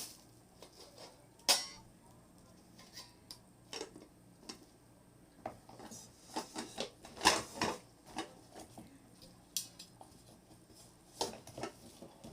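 Irregular knocks, clicks and clatter of hard items being handled and set down, with a sharp knock about a second and a half in and a louder cluster about seven seconds in.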